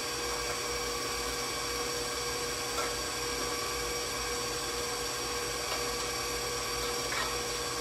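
Electric stand mixer running steadily at speed, whipping homemade marshmallow icing in its metal bowl; an even motor hum with steady tones that does not change.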